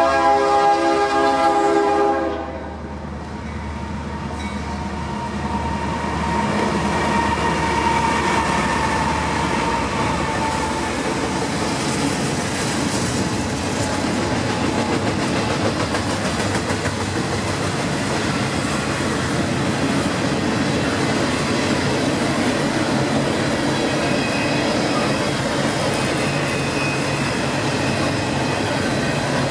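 GE diesel locomotive horn sounding one blast of about two seconds, cut off sharply, then a double-stack container train passing at speed: a steady rolling noise of steel wheels on rail.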